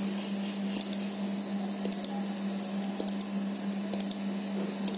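Sparse clicking from work at a computer, mostly pairs of quick clicks about once a second. A steady low hum runs underneath.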